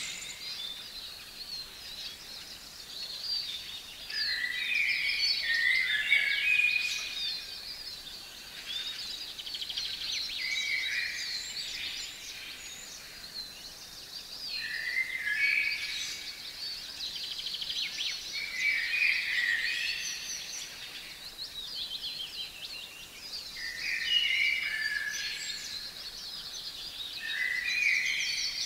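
Wild songbirds singing in a yard. One bird repeats a short phrase of stepped clear notes every four or five seconds over the continuous high twittering of other birds.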